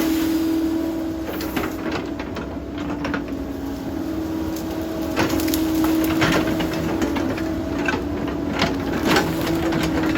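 Cat 308 excavator running with a steady hum, with irregular cracking and crunching sounds throughout as the machine works on the slope.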